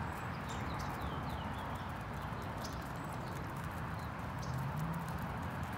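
A small flock of hens pecking at feed on the ground: a quick, uneven patter of sharp beak taps.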